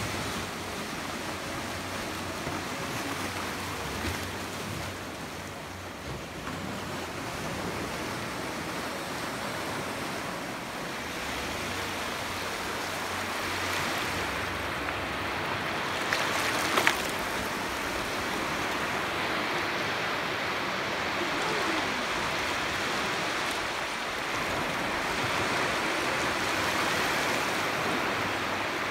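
Small sea waves breaking and washing in over a stone-paved ramp close to the microphone: a steady rush of surf that grows a little louder in the second half. Two brief sharp knocks stand out a little past halfway.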